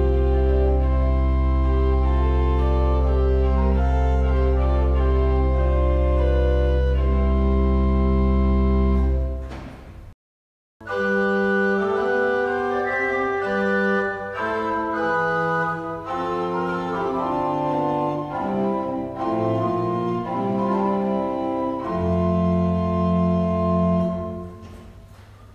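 Restored 18th-century Giovanni Fedeli pipe organ playing sustained full chords over a deep pedal bass, which stops dead about ten seconds in. After a brief silence a second passage of moving chords begins and ends on a held chord that fades away near the end.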